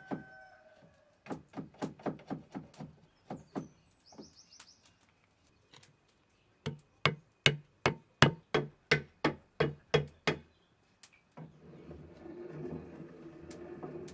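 A hand-turned stone quern grinding rice: quick, evenly spaced stone knocks, about three to four a second, in two runs. Near the end these give way to a steady low grinding rumble.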